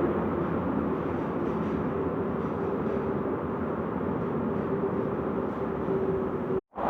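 Peugeot 206 RC on the move, with a steady rolling rumble and a steady whine from the bearing in the middle of the drive shaft, whose noise is abnormal: the intermediate support bearing is failing. The sound cuts out briefly near the end.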